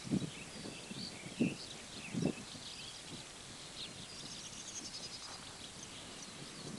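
Birds singing, a steady scatter of short high chirps and twitters. In the first two and a half seconds, three soft low footsteps sound on the dirt.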